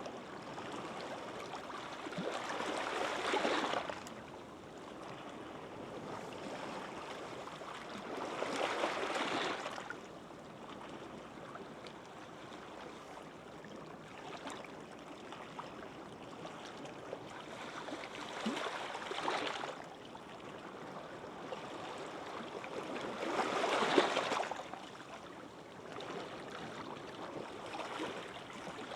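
Gentle sea waves washing onto a sandy beach. Each wave swells and fades about every five seconds over a steady hiss of surf.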